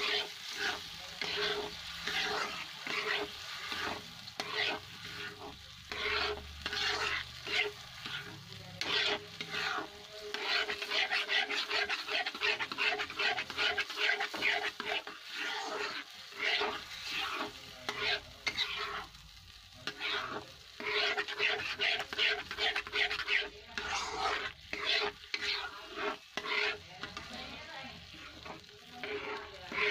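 A spatula scrapes and stirs mawa (khoya) frying in ghee in a kadhai, in quick repeated strokes, with a short break about two-thirds of the way through.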